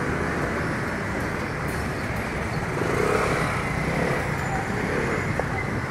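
Steady rushing noise of heavy rain and strong wind on a street, with road traffic blended in; no single sound stands out.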